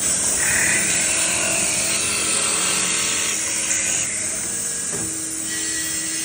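CNC wood-turning lathe cutting a wooden handle: a steady high hiss of the cutters on the wood over a faint motor hum, starting suddenly.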